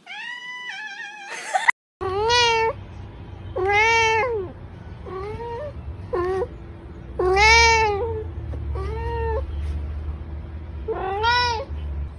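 A kitten's short cry, then, after a brief break, a cat meowing over and over, about seven meows a second or two apart, each rising and then falling in pitch. A steady low hum runs under the later meows.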